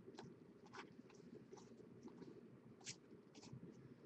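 Near silence with faint, scattered clicks and rustles of 2015 Bowman baseball cards being flipped through by hand, the clearest about three seconds in.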